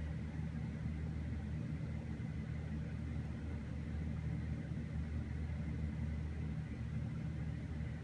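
Steady low rumbling hum with a faint, constant high whine above it, unchanging throughout.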